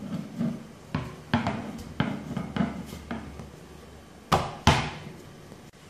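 Wooden rolling pin knocking and rolling on a stainless steel worktop while pasta dough is rolled out: a run of light knocks, then two sharper, louder knocks in quick succession about four seconds in.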